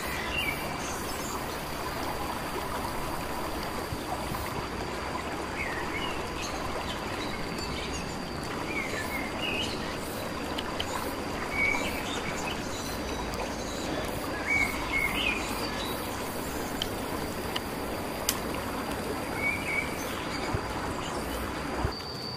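Short bird chirps every few seconds over a steady rushing hiss, with a thin, steady high-pitched whine underneath.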